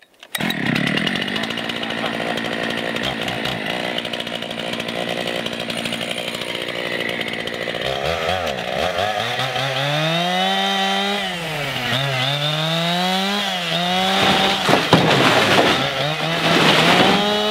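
Gas chainsaw running at high revs while cutting a log. From about eight seconds in, the engine note dips and climbs back several times as the saw loads up in the wood, and the cut is loudest near the end.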